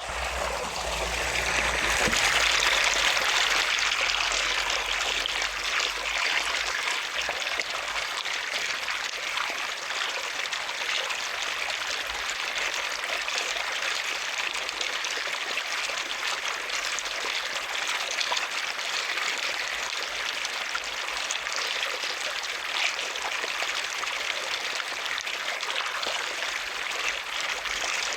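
Running water flowing and trickling steadily, a little louder a couple of seconds in.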